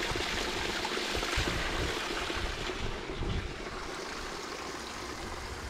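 Water rushing steadily, as from a mountain stream, louder for the first three seconds or so and then a little quieter.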